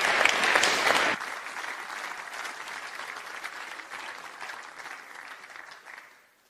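Audience applauding: loud for about the first second, then dropping off sharply and dying away over the next few seconds.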